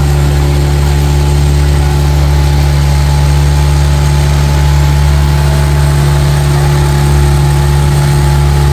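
Motorboat engine running at a steady speed, a low, even drone that holds the same pitch throughout.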